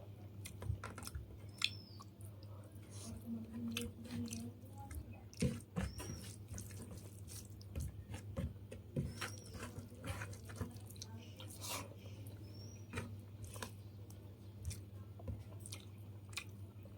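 A person chewing and eating rice and fish close to the microphone: irregular wet mouth clicks and smacks. A steady low hum runs underneath.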